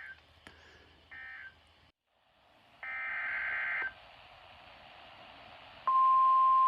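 NOAA Weather Radio Emergency Alert System signal: short screeching data bursts of the alert header, the last and loudest about three seconds in, then near the end the steady single-pitch warning alarm tone begins.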